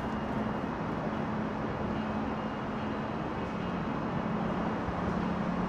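Steady road traffic noise with a low, even hum underneath.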